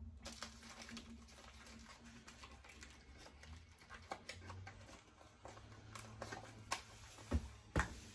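Faint handling noises of items and packaging being rummaged through in a cardboard box, with three sharp knocks near the end. A low steady hum runs underneath.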